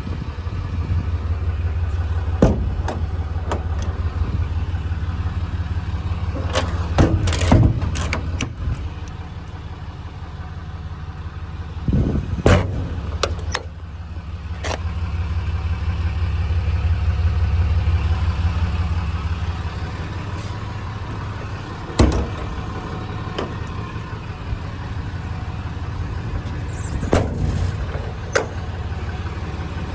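Cummins 6.7 turbo-diesel idling steadily, swelling louder for a few seconds past the middle, with several sharp knocks and bangs over it.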